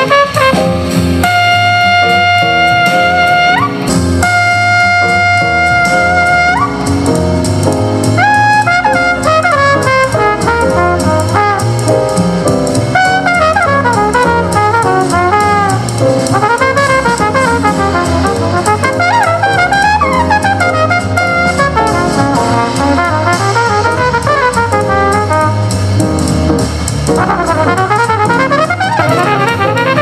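Brass-led jazz, with trumpet over a drum kit, played back at 75% volume through a JBL Tuner 2 portable Bluetooth speaker and, partway through, through a JBL Horizon 2 clock-radio speaker. There are a few long held horn notes near the start, then quick runs of notes.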